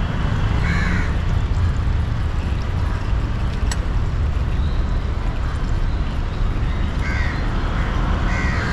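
A crow cawing a few times, about a second in and twice near the end, over a steady low rumble of background noise.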